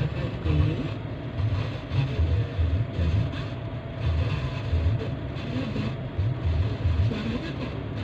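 Heavy diesel machinery running: a hydraulic excavator working beside a bogged-down dump truck, a steady engine drone with an uneven low rumble that swells and fades every second or so.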